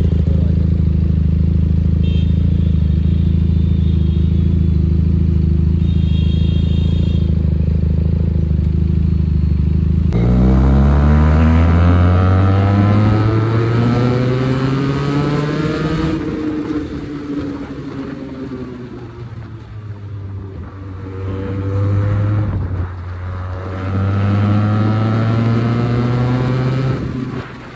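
QJMotor SRK 400 motorcycle engine and exhaust, a 400 cc parallel twin, running at a steady note for about ten seconds. The revs then climb for several seconds, ease off, climb again and drop near the end.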